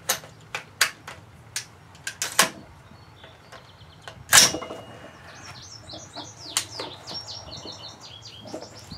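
Metallic clicks and clacks of a 5.56 AR-style rifle being handled on a shooting bench, with one sharp louder clack about four and a half seconds in. From about halfway a songbird chirps in quick runs of short high notes.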